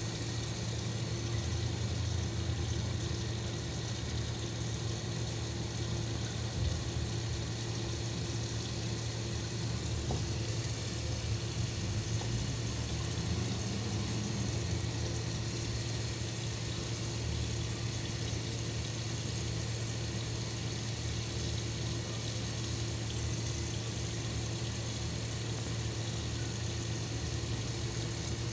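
Steady rush of running water with no breaks, over a constant low hum.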